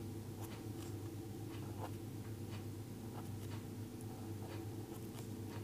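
Pen on paper: the tip scratching in short, irregular strokes, a few a second, as small letter shapes are written by hand. A faint steady low hum runs underneath.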